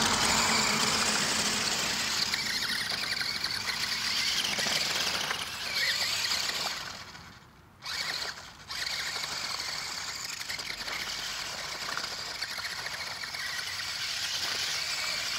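Battery-powered RC monster truck's electric motor and gears whining as it drives through slush and shallow puddles. The whine cuts out for about a second midway, then comes back in two short steps.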